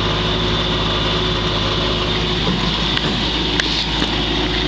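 1955 Chevrolet Bel Air's original 265 V8, with the Power Pack four-barrel carburettor and true dual exhaust, idling steadily and quietly through its correct mufflers. A few light clicks about three seconds in.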